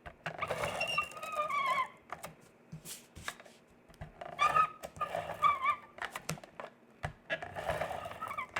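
Adhesive being run along a strip of cardstock, with squeaky, scratchy gliding sounds in three passes and light clicks and taps as the paper is handled.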